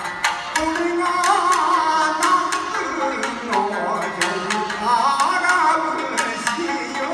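Japanese min'yō folk singing: a male voice sings long, wavering, ornamented phrases with heavy vibrato over a shamisen accompaniment, with plucks struck sharply, and drum.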